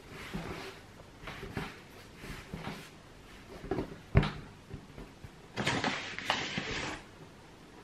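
Hands kneading and pressing a ball of pasta dough on a floured wooden table: soft rubbing and pressing sounds, then a thud about four seconds in as the dough ball is set down on the wood. Near the end comes a rustling sound lasting about a second and a half.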